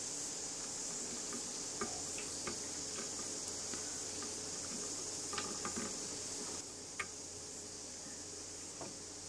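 Scattered light clicks and taps of wire connectors and pliers being handled as stator coil leads are joined, over a steady hiss. The sharpest click comes about seven seconds in.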